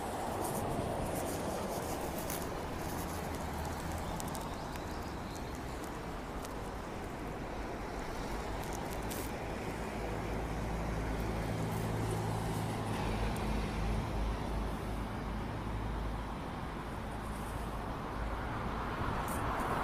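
Road traffic passing by, with a vehicle engine humming steadily for a few seconds from about halfway through.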